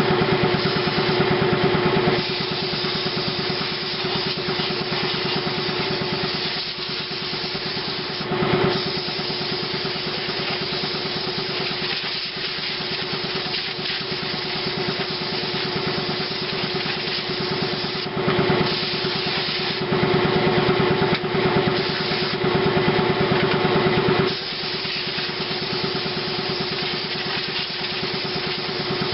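Compressed air hissing from a blow nozzle to clean dust out of a computer, louder in stretches as the air is let through, over the steady hum of an air compressor running.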